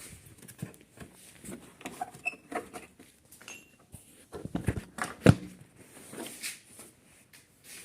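Clicks and knocks of a Hero Passion Pro motorcycle's seat latch being pulled down by hand and the seat coming free. There is a cluster of knocks about four and a half to five seconds in, with one sharp knock as the loudest.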